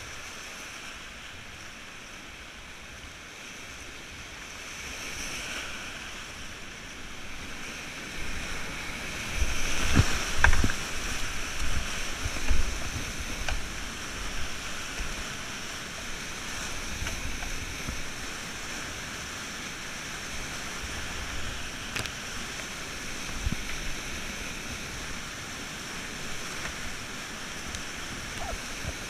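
Whitewater rapid rushing around a kayak: a steady rush of churning water that grows louder about eight seconds in, with low buffeting thumps and a few sharp knocks.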